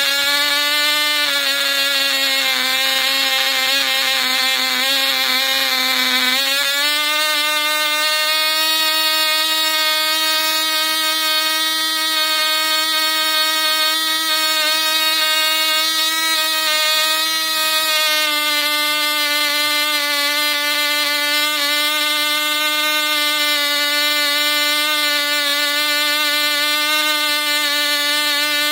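Cox Tee Dee .049 two-stroke glow engine running flat out on its propeller with a steady high-pitched whine, turning around 19,000 rpm. About six seconds in the pitch steps up sharply and holds, then sags slightly about two-thirds of the way through.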